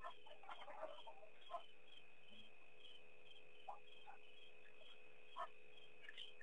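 Faint night insect chorus: a steady high trill with chirps pulsing about twice a second, and a few scattered soft clicks and knocks.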